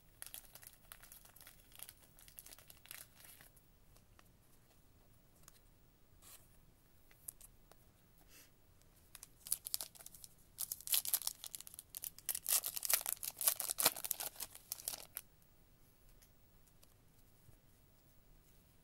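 A trading-card pack's wrapper being torn open and crinkled by hand, a dense crackling that is loudest from about ten to fifteen seconds in. Softer rustling in the first few seconds.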